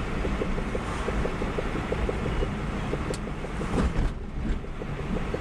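Rapid rhythmic knocking, about four to five knocks a second, from the wheels or axles of a moving Geo Metro, over the car's running and road noise. The knock follows wheel speed, not the engine. The owner suspects the axles or brakes.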